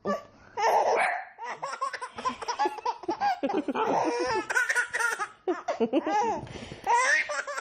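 A young child laughing in quick repeated bursts, starting about half a second in after a near-silent moment.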